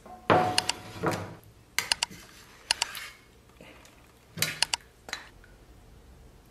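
Metal utensils and dishware clinking against a steel pan: several sharp clinks with a short ring, some coming in quick pairs and triples.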